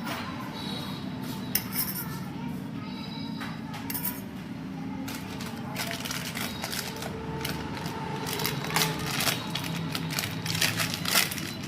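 Light metallic clinks and taps of hand tools and clutch parts being handled, growing busier about halfway through, over a steady low hum.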